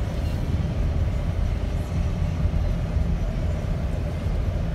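Steady low rumble of engine and tyres inside the cab of a 2017 GMC Canyon with the base four-cylinder engine, cruising at about 60 mph while towing a heavy trailer.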